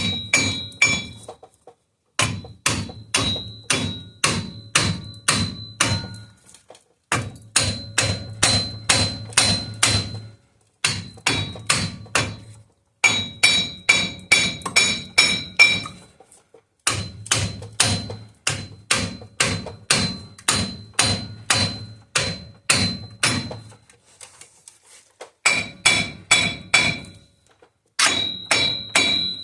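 Hammer blows on a worn front wheel hub assembly of a 2016 Chevy 3500HD, driving it out of the steering knuckle, with the metal ringing at each strike. The blows come in quick runs of about three a second, with short pauses between runs, as the hub comes loose easily.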